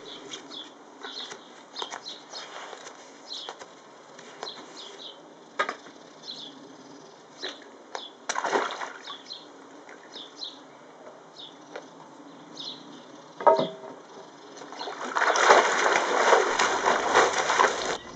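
Splashing in a shallow inflatable paddling pool as someone steps into the water and moves about in it, with a louder spell of splashing near the end. Small garden birds chirp all through.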